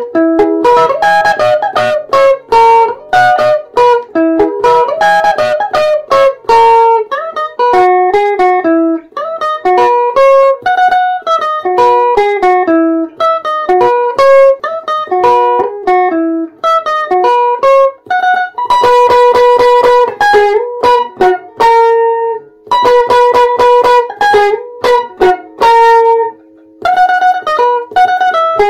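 Electric guitar playing a melody of single picked notes, with fast repeated notes in the second half and a short break near the end.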